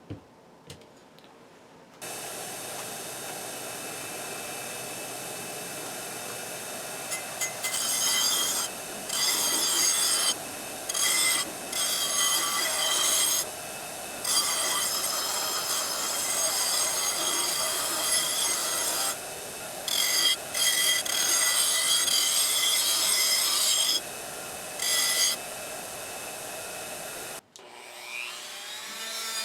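A small power tool runs steadily from about two seconds in. Its wheel grinds against metal in repeated louder passes, scrubbing rust off the speaker's cast iron base. It stops abruptly near the end.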